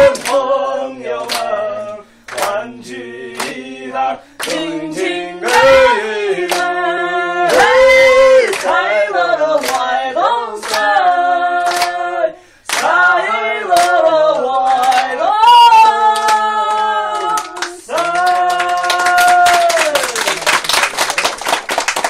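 Unaccompanied singing in long, held and bending notes, with short breaks between phrases. About two seconds before the end the song stops and quick hand clapping takes over.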